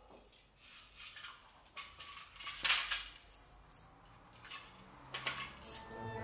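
Scattered light rustles and small clicks of someone handling clothing and a small object, the loudest about two and a half seconds in.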